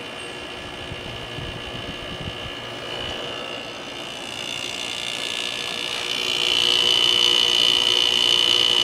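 2001 GE Quiet-Aire window air conditioner running with its LG compressor and fan on: a steady hum with a high whine that gets louder about six seconds in. It is a bit noisy, which the owner puts down to the compressor not having run in a while.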